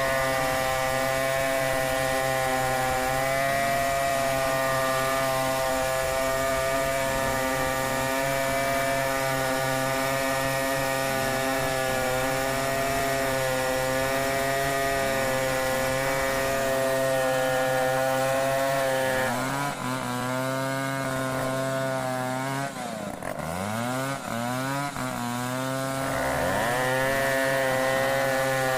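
Stihl 070 two-stroke chainsaw running steadily at high revs while ripping through a log. About two-thirds of the way in, the revs sink away and then climb back up to full speed over several seconds.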